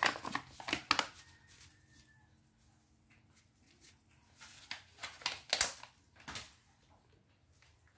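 Cats eating dry kibble off a hard floor: scattered crisp crunches and clicks, in a cluster in the first second and another past the middle.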